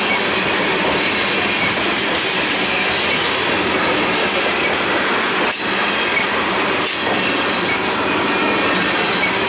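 Tank cars of a freight train rolling past close by on a curve: a steady rumble of steel wheels on rail with faint wheel squeal, easing briefly twice about five and a half and seven seconds in.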